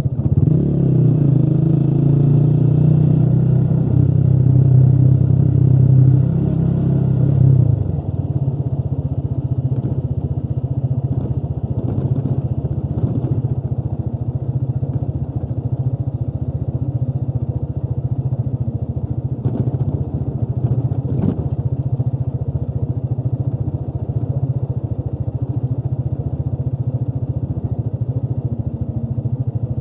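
Motorcycle engine running while riding. It pulls louder under throttle for about the first eight seconds, then eases off to a steadier, quieter run.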